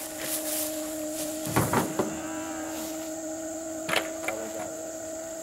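A steady mechanical hum, with a loud rustling knock about a second and a half in and a sharp click near four seconds.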